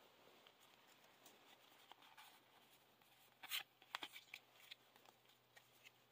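Near silence with the faint rustle of a small stack of Yu-Gi-Oh trading cards being slid one behind another in the hands, a couple of brief soft rustles about halfway through.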